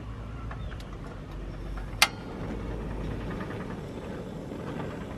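One sharp metallic click about two seconds in as the gooseneck kettle is handled on the wire grate of a portable butane camping stove, with faint small ticks over a steady low rumble.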